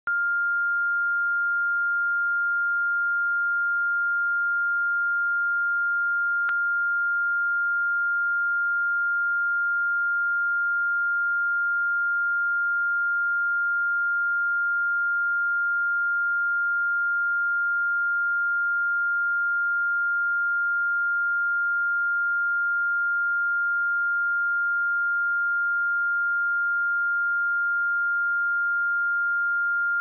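A 1402 Hz sine-wave test tone: one pure, unwavering tone held at a constant level.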